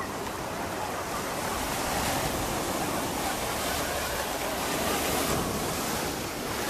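Surf washing in the shallows of a sandy beach, a steady rush of water, with some wind on the microphone.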